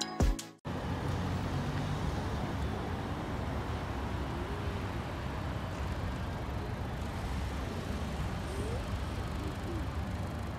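A brief last beat of intro music, then the steady noise of road traffic from cars passing on a city street.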